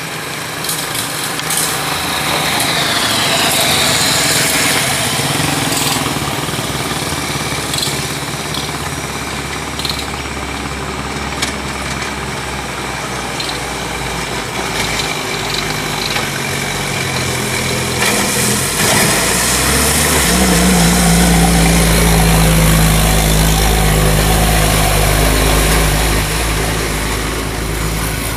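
Diesel engine of a Hino truck heavily loaded with logs, running under load as the truck approaches. It turns into a strong, steady deep drone for the last eight seconds or so as the truck passes close by.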